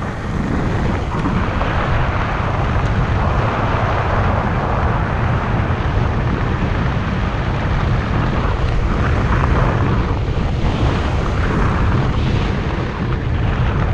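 Steady rush of wind on the microphone with low tyre rumble from a moving electric fat-tire bike.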